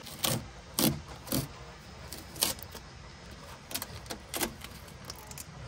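Protective plastic film and tape on a 3D printer's front glass being handled and pulled, crinkling with about seven irregular sharp crackles.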